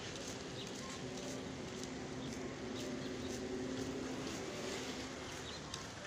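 Outdoor street ambience with a steady engine hum that grows louder through the middle and then fades, over faint short high ticks.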